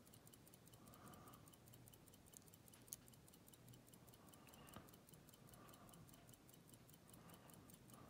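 Near silence: faint clicks of a hook pick working the pins inside a padlock, two of them a little sharper about three and five seconds in, over a faint, fast, even ticking.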